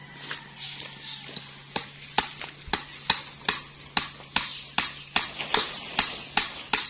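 Steady strikes of a hand tool on a wooden block, about two and a half blows a second, starting a couple of seconds in.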